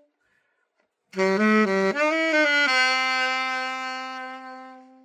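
Alto saxophone, a copy of the Selmer Reference 54, play-tested after a complete overhaul: after about a second of silence it plays a short run of low notes that steps upward, then holds one long note that fades away.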